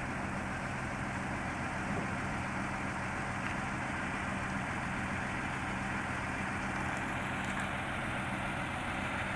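Heavy diesel engine idling steadily, a low even hum with no change in speed.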